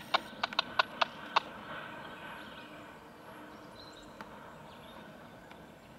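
Freight car wheels clicking over the rail joints of a steel deck bridge as loaded container flatcars roll past: a quick, irregular run of sharp clicks in the first second and a half, then a steady rolling hiss that slowly fades.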